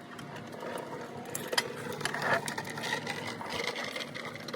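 Ratchet wrench clicking as bolts are turned during suspension work, with a couple of sharp metallic knocks.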